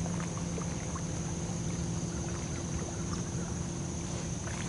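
Steady outdoor ambience: a low wind rumble on the microphone, a faint steady low hum, and a continuous high-pitched insect drone, with a few faint ticks.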